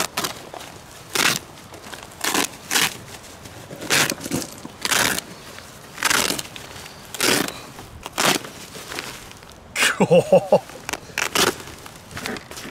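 A knife slicing through the nylon fabric of a body armor carrier in short rasping strokes, about one a second. About ten seconds in there is a brief vocal sound.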